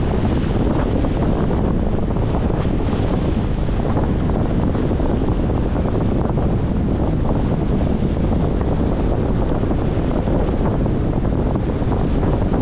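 Steady wind buffeting the microphone, over choppy water washing against a concrete shoreline.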